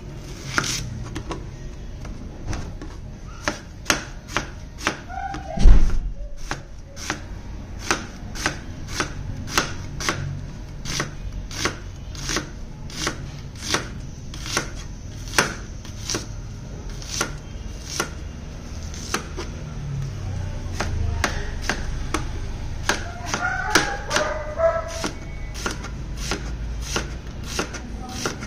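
Cleaver slicing a peeled onion on a plastic cutting board: a steady run of knife taps on the board, about two a second, with one heavy thump about six seconds in.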